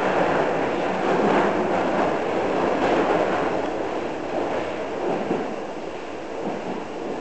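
Toei Shinjuku Line subway train running through a tunnel, heard from inside the carriage: a steady rumble of wheels on rail. It grows gradually quieter over the last few seconds.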